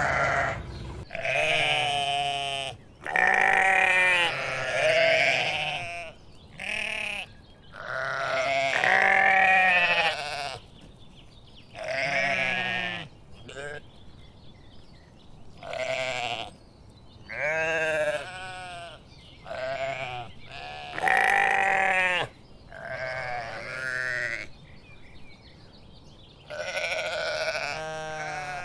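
Sheep bleating repeatedly: about a dozen separate wavering bleats, each a second or two long, with short pauses between them.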